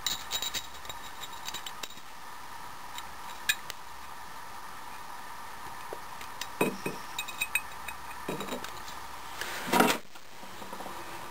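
Small screwdriver clicking and scraping on the little screws that fasten a bronze blank into a metal matrix plate: light metallic clinks and taps, with a louder clatter near the end.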